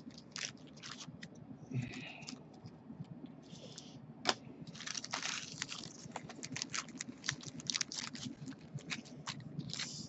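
Clear plastic card sleeves crinkling and crackling as they are handled, with many small irregular clicks and taps, one sharper click about four seconds in.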